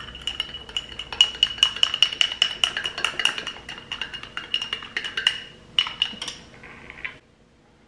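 A spoon stirring a drink in a drinking glass, clinking rapidly against the sides, with the glass ringing. The stirring stops about seven seconds in.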